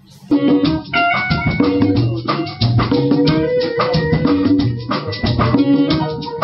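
Music cutting in suddenly: a beat-driven track with drum kit and rattling percussion in a quick, even rhythm, under sustained pitched instrument notes.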